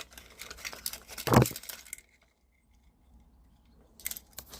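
Broken pieces of a smashed alarm clock clinking and rattling as they are handled, with a louder knock about a second and a half in. A quiet pause follows, then a few more clicks near the end.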